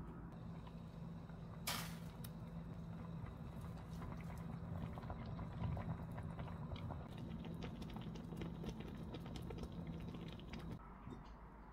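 Dumpling hot pot broth simmering in an enamelled cast iron pot: a steady stream of small bubbling pops over a low hum, with one sharp click about two seconds in.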